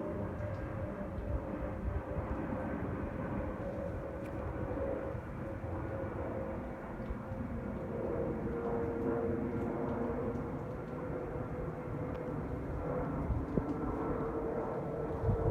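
Jet airliner's engines, a steady rumble with a hum that drifts slightly lower in pitch about halfway through.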